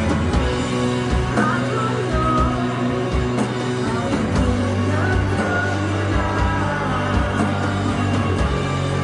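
A live rock band jamming: held bass notes that change about four seconds in, under regular drum hits and higher wavering melodic lines.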